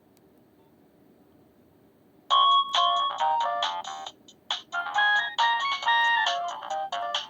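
Nokia 2660 mobile phone playing a ringtone: a quick melody of short electronic notes that starts about two seconds in, after faint hiss.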